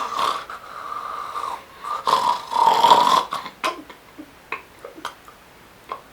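A person's strained, anguished-sounding snore, the kind that sounds as if the sleeper is struggling to breathe: two long snores, the second louder, then a few short clicks.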